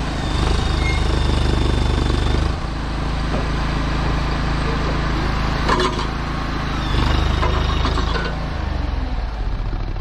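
Small mini skid steer engine running hard under load as its bucket lifts a dump trailer's tongue. It swells twice, each time with a high hydraulic whine, and there is a metallic clank near the middle. The loader can lift the trailer but is too small to pull it.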